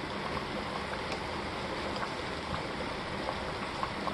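Pot of soup simmering on the stove: a steady bubbling hiss with small scattered pops.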